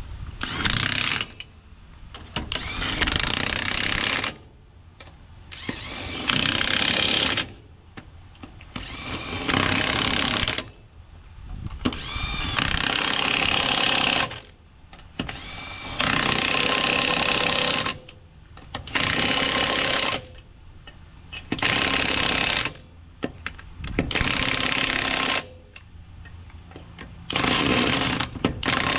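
Half-inch battery-powered Makita impact wrench hammering lug nuts tight on a trailer wheel, in about ten short runs of one to two seconds each with brief pauses as it moves from nut to nut.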